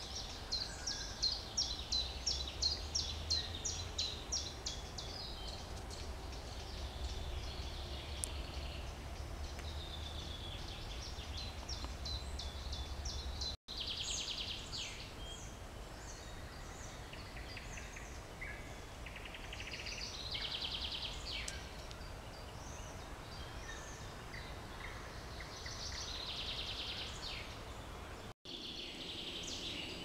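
Several songbirds singing at once, with overlapping chirps and trills. The loudest is a fast series of repeated notes in the first few seconds. A low rumble runs under the song for about the first half, and the sound cuts out for an instant twice.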